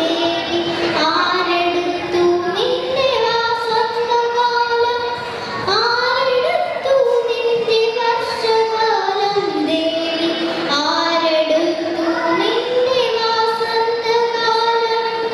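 A young girl singing a Malayalam poem (kavitha) solo into a handheld microphone, in a slow melody of long held notes that glide from one pitch to the next.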